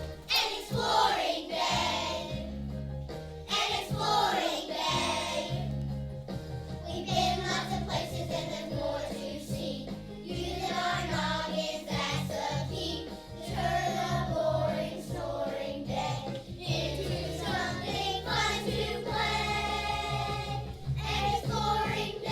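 Children's choir singing a song over an instrumental accompaniment with a steady bass line.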